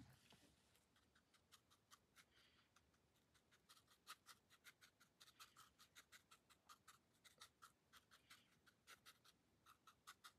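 Faint, quick taps of a paintbrush dabbing on paper, about four a second at an uneven pace.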